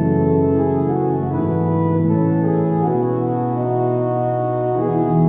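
Compton pipe organ playing sustained chords on its three diapason stops drawn together: a full, loud romantic diapason tone with a deep bass underpinning. The chords change a few times.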